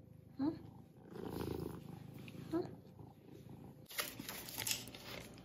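Domestic cat purring, with two short rising chirps, one near the start and one about halfway through. From about four seconds in there is rustling.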